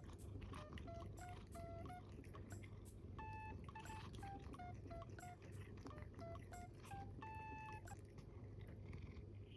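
Quiet background music: a simple, bouncy melody of short, clean plucked notes stepping up and down in pitch.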